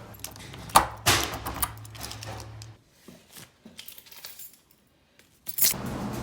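Clinks and clatter of small hard objects being handled, over a steady low hum that stops about three seconds in.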